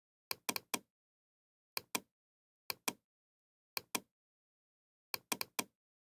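Knocking: short sharp knocks in small groups of two to four, about one group a second, with dead silence between.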